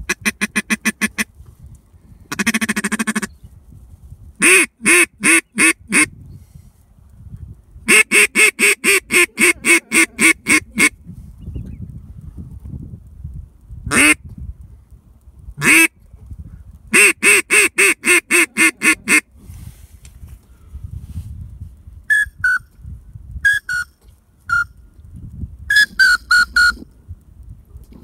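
Duck call blown close by: several series of loud quacks, including a long run of about fifteen, with single quacks between. Near the end come softer, higher, short whistled notes.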